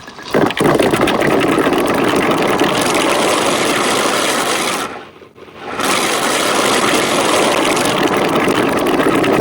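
Marbles rolling and rattling down a marble-run track in a dense, continuous clatter of fine clicks. It drops away briefly about five seconds in, then picks up again.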